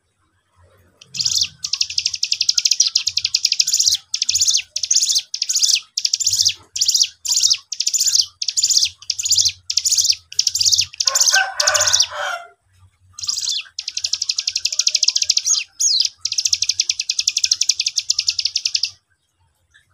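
Young ciblek gunung (a prinia) singing hard: long, fast, high buzzing trills repeated with short breaks, beginning about a second in and stopping shortly before the end. Around the middle a lower, rasping call cuts in for about a second.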